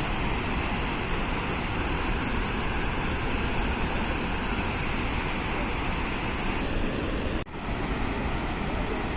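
Steady rush of falling water from the Webuye (Nabuyole) waterfalls, broken by a sudden brief gap about seven and a half seconds in.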